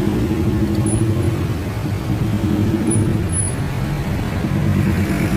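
Tour bus engine running with a steady low rumble.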